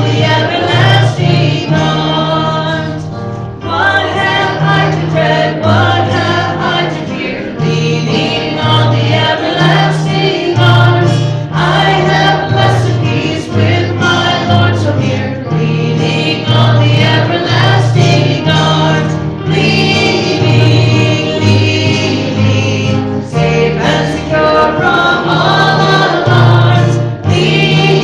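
Choir singing a worship song with instrumental accompaniment, over a bass line that moves from note to note about every second.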